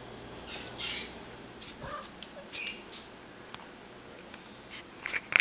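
A cat pawing at fridge magnets: soft scrapes and rustles, then a quick run of sharp clicks near the end.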